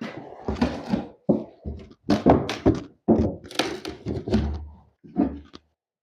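Rotten wooden subfloor being pried and pulled up: an irregular run of thunks, knocks and cracking of wood, with a heavier thud about four and a half seconds in, stopping shortly before the end.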